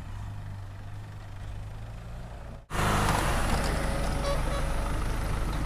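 Off-road 4x4 engine running steadily with a low hum; about two and a half seconds in the sound cuts out for an instant and comes back louder, with more rough engine and tyre noise.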